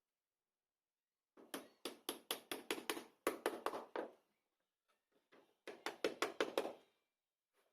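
Hammer tapping in two quick runs of light blows, about four or five a second, the first run lasting almost three seconds and the second about one second, with a pause between them.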